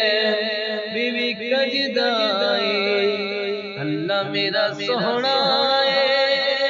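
Devotional Urdu vocal song (a hamd praising Allah) used as background music: a voice singing long, wavering held notes, dipping lower about four seconds in before rising again.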